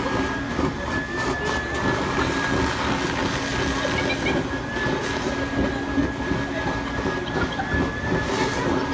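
Build-A-Bear stuffing machine running steadily under its foot pedal, its blower rushing fluff up the tube into a teddy bear held on the nozzle, with a steady high whine over the rushing air.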